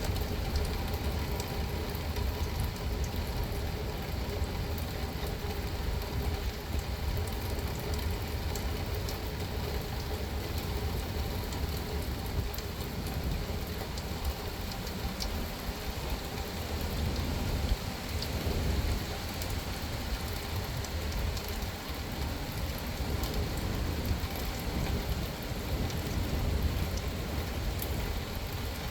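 Steady rain falling on a car, with scattered sharp drop hits and a constant deep rumble underneath.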